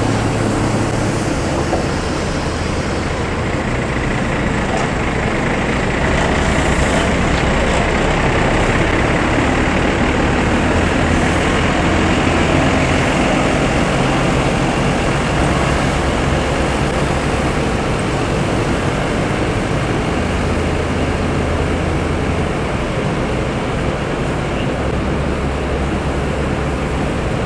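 Steady motor-vehicle noise: a low engine drone under road and tyre noise, the drone shifting in pitch several times.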